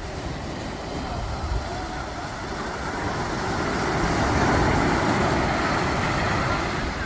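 Sea surf breaking and washing up the beach, a steady rush that swells to a louder wave about halfway through.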